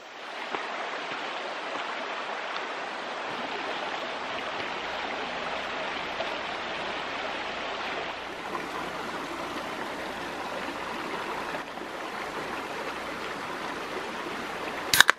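Mountain stream running over rocks, a steady rush of water. Near the end comes a single sharp crack: a drink can's pull tab snapped open.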